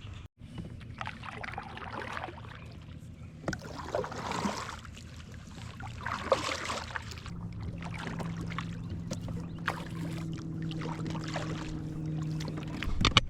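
Water swishing and dripping around a kayak, with a few swells of splashing, as from paddle strokes, in the first half. From about seven seconds a steady low hum joins in and runs until near the end.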